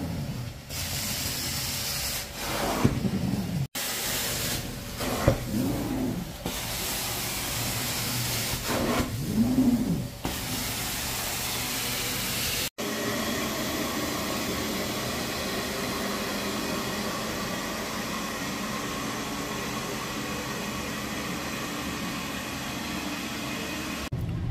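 Carpet-cleaning extraction on a rug: a steady vacuum hiss from the cleaning wand and hose, with spraying and the wand rubbing across the pile. The sound cuts off abruptly twice, and after the second cut a steadier machine hum with a constant pitch runs on.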